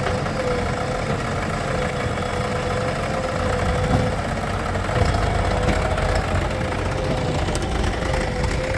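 Heavy diesel engine of earth-moving machinery running steadily, with a constant hum over the low rumble and a couple of brief knocks around the middle; the engine gets slightly louder about halfway through.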